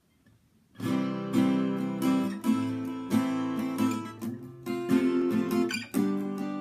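Steel-string acoustic guitar with new D'Addario EXP19 coated strings in standard tuning, strumming chords in a steady rhythm that starts about a second in.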